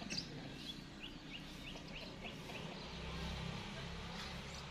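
Small birds chirping: a run of short, quick falling chirps, several a second, over a faint steady low hum.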